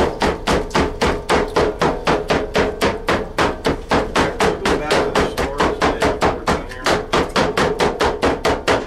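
Barbecued meat being chopped by hand, quick even chopping strokes at about five a second.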